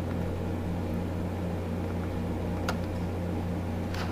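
Steady low electrical hum, like a fan or mains hum, with a faint click about two and a half seconds in and another near the end.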